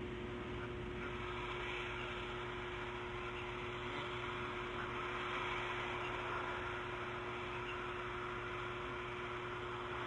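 Steady hiss with a constant electrical hum from a nest camera's outdoor microphone feed; no owl calls.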